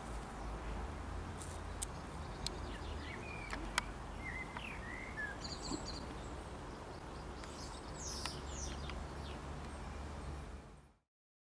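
Garden ambience: small birds chirping now and then over a steady low background rumble, with a few faint clicks. It fades out to silence near the end.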